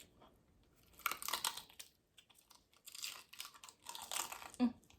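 Crunching bites into a crispy fried crab rangoon, in two crackly stretches of about a second each, the first about a second in and the second near the end.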